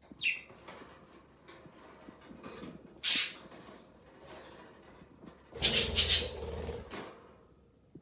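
Wire cage roof being lifted off with budgerigars perched on it: the wires rattle and scrape while the budgies flutter their wings, in two loud bursts about three seconds and six seconds in. A short falling chirp near the start.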